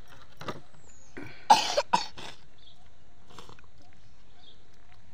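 A person coughing three times in quick succession, about a second and a half in.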